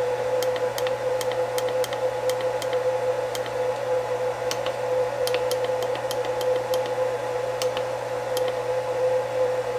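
Button presses on a Huanyang VFD's keypad, about twenty quick, uneven clicks as the parameter numbers are stepped through, over a steady electrical hum.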